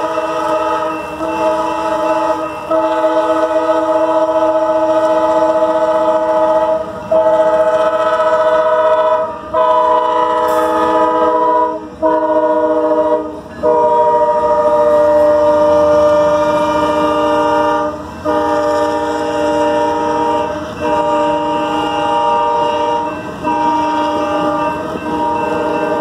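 Amtrak GE P42DC Genesis locomotive's multi-chime air horn sounding a long run of blasts, a held chord cut by short breaks into long and short notes, loudest about midway as the locomotive passes. Passenger cars roll by on the rails near the end.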